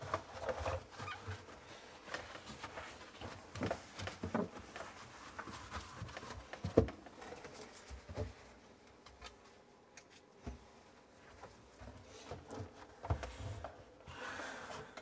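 Cloth towel wiping water off the plastic inner walls of a refrigerator: scattered short rubbing strokes and light knocks, with one sharper knock about seven seconds in.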